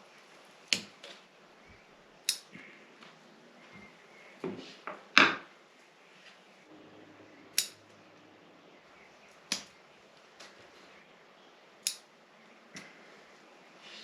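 Bonsai cutters snipping: about seven sharp, separate snips, one every second or two.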